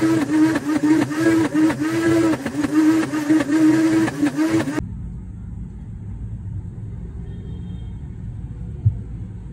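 Countertop blender running under load, blending an icy cappuccino frappe mixture with a tamper pushed down into it. The motor pitch dips and recovers over and over, with rattling from the slush. It cuts off suddenly about five seconds in, leaving only a low rumble and a single small click near the end.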